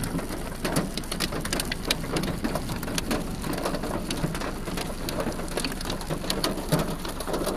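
Heavy rain falling: a steady hiss with a dense, irregular patter of drops striking a hard surface.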